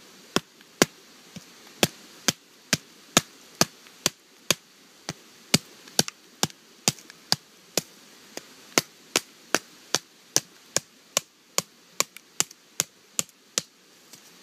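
A wooden baton striking the spine of a Condor Bushlore knife, driving the blade down through a small log to split it. Sharp knocks come steadily at about two a second, some lighter than others, until the log splits near the end.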